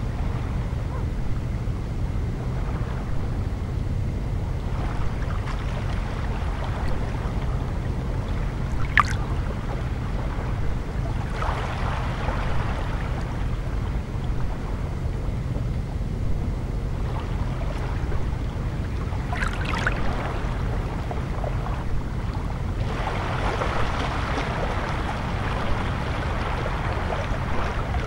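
Small waves of a calm sea lapping and washing over a pebble shore, over a steady low rumble. The wash swells several times, most strongly near the end, with a couple of brief splashes in between.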